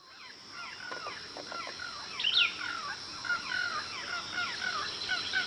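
Birds calling: a fast run of short, falling chirps, several a second, with one louder, higher call about two seconds in, over a steady high-pitched hum. The sound fades in at the start.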